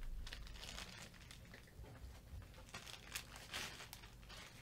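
Faint crinkling and rustling of packaging being handled, with scattered small clicks and crackles.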